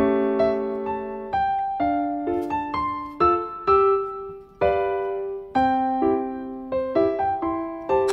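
Background music: a gentle piano tune of single struck notes, about two a second, each ringing and fading.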